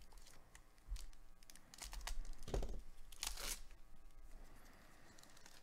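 Foil wrapper of a baseball card pack being torn open and crinkled in a series of short bursts, loudest about two and a half to three and a half seconds in.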